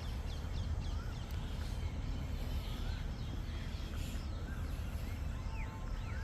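Birds chirping and calling in quick short notes throughout, with a steady low rumble underneath.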